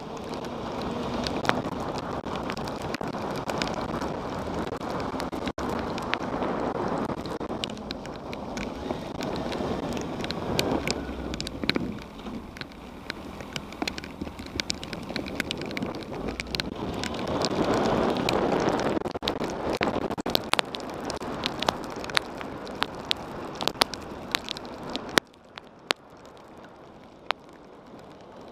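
Wind rushing over a motorcycle-mounted action camera's microphone while riding in the rain, with many sharp ticks of raindrops striking the camera housing. The rushing drops away suddenly near the end.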